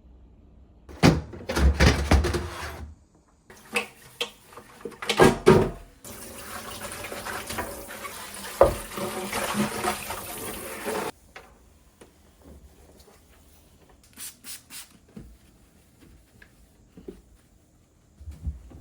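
Water running from a kitchen tap for about five seconds, cut off abruptly, with clattering knocks of things being handled before it and a few light taps after.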